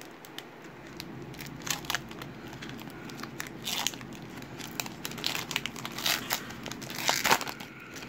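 Foil wrapper of a trading-card pack being peeled open at its crimped seal: irregular crinkling and crackling, with louder rips in several spurts, the loudest near the end.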